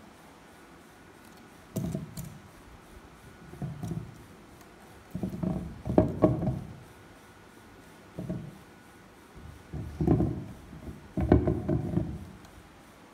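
Dull wooden knocks and bumps in about six short clusters, the sound of carved ebony figurines being handled and set down on a hard surface.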